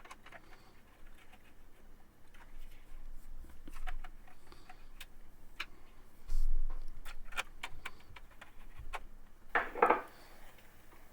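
Screws being driven into a computer case's metal motherboard tray: scattered small metallic clicks and ticks, with a dull thump about six seconds in.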